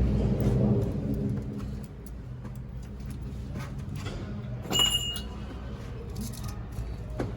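Datsun pickup engine with a newly fitted exhaust pipe, settling down from a rev over the first two seconds and then idling steadily. A single sharp metallic clink with a short ring about five seconds in.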